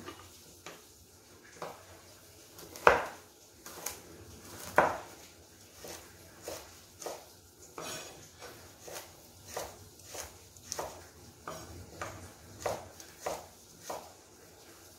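Kitchen knife slicing carrots on a wooden chopping board: a string of sharp knocks as the blade meets the board, roughly one to two a second, with the two loudest knocks about three and five seconds in.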